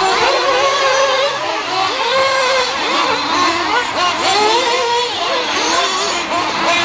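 Several nitro-powered radio-controlled cars' small two-stroke glow engines revving up and down over one another. Their pitches keep rising and falling without a break as the cars race and brake round the track.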